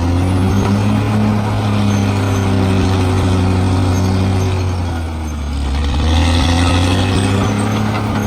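Bulldozer's diesel engine running steadily. About five seconds in its note sags and then picks back up.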